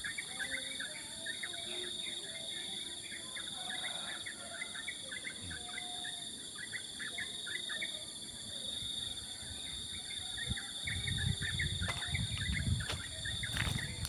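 Small songbirds chirping over and over in a morning chorus, over a steady high drone of insects. A low rumble on the microphone comes in near the end.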